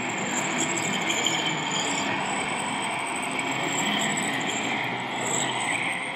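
High whine of RC model tractors' electric motors and gearboxes, rising and falling with speed, over the steady din of a busy exhibition hall.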